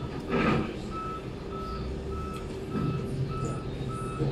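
A vehicle's reversing alarm beeping steadily at one pitch, a little under two beeps a second, over a low engine rumble. There is a brief louder noise about half a second in.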